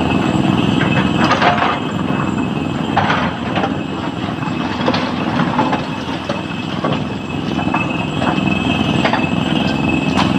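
SANY hydraulic excavator's diesel engine and hydraulics running steadily under load as it loads broken rock into a dump truck, with a thin steady high whine. Irregular knocks and clatters of stone on the steel bucket and truck body come every second or two.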